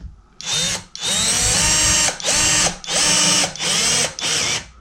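Power drill-driver driving a 25 mm wood screw into a plywood ceiling to fix a blind bracket, run in about six short bursts, each starting with a rising whine; the second burst is the longest.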